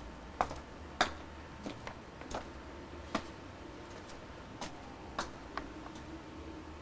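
Footsteps on stone steps: hard-soled shoes giving sharp, irregular clicks about every half second to second, over a faint steady background hum.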